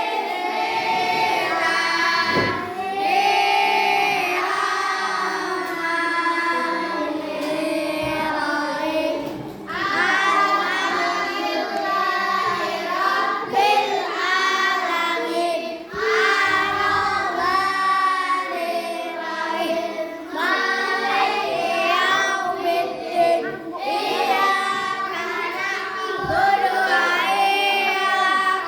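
A class of children singing together in unison, phrase after phrase with short breaks for breath.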